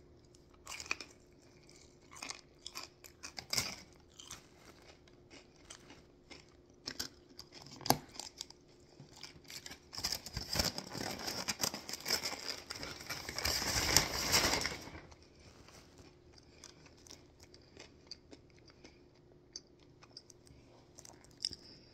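Biting and chewing a crispy breaded fried chicken tender: scattered crunches, then a louder, denser stretch of crackling from about ten to fifteen seconds in, then quieter chewing.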